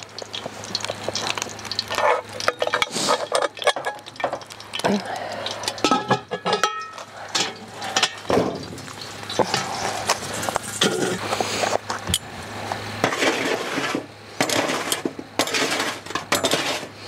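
Cast-iron camp Dutch oven clanking on its wire bail as it is lifted and moved, and metal tongs scraping and clinking charcoal briquettes across a metal tray: a continual clatter of knocks and scrapes, with a brief metallic ring about six seconds in.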